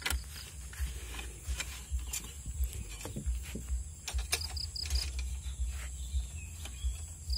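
Cloth rubbing and wiping over a motorcycle's plastic body panels, with scattered light knocks and handling noise over a low, uneven rumble on the microphone. A few short high chirps come about halfway through and again near the end.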